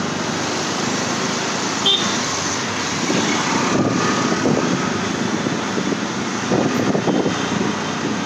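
Auto-rickshaw running through city traffic, heard from inside its open cabin: a steady engine and road noise mixed with the surrounding traffic. A short, high beep sounds about two seconds in.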